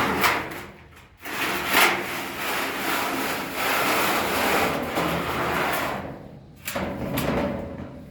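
Wood scraping and rubbing, like a board or barrier being dragged aside, in one long scrape of about five seconds and then a shorter one near the end.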